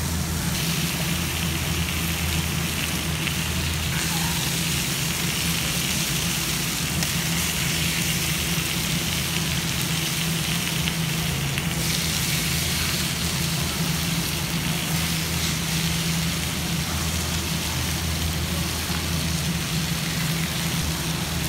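Tuna steak sizzling on a hot oiled grill, a steady hiss that swells a little now and then, over a low steady hum.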